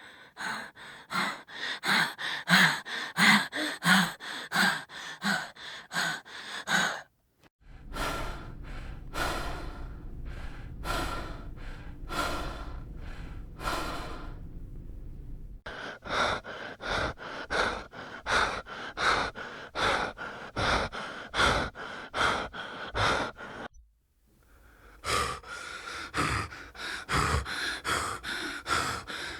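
A person breathing heavily in rapid, panting breaths, about two a second, in four separate takes with short breaks between them. The second take has a low rumbling hum under it.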